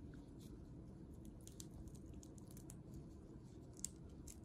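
Faint, scattered crackles and small clicks of a crayfish's abdominal exoskeleton being pried and peeled away by gloved fingers, with one sharper click near the end.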